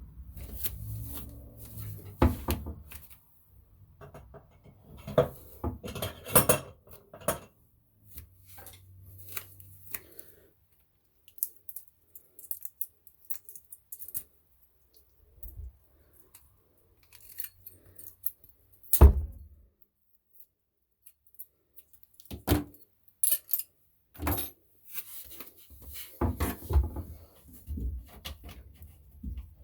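Scattered clinks, knocks and handling noises of plumbing parts and tools being worked under a bathroom sink, with one louder thump about nineteen seconds in.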